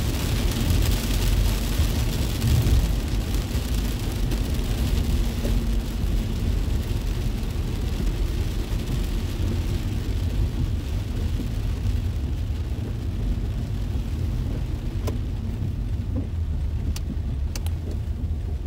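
Inside a moving car in heavy rain: a steady low road rumble with the hiss of tyres on the wet road and rain on the car, the hiss fading in the second half. A few light clicks near the end.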